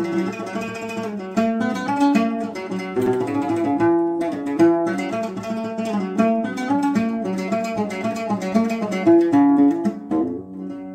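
Solo oud plucked in a quick run of single notes, playing the melody of a Sudanese haqiba song, with a brief lull about ten seconds in.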